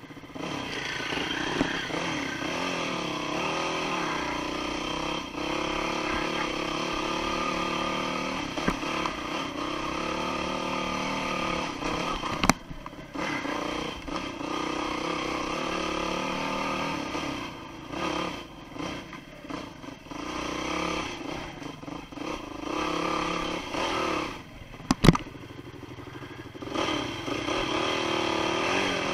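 Dirt bike engine ridden along a trail, revving up and down as the throttle opens and closes, easing off several times in the second half. Two sharp knocks stand out, about halfway and near the end.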